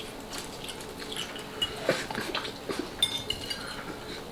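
Cutlery clinking and tapping against dishes: a scattering of short clinks, a few with a brief ringing ping.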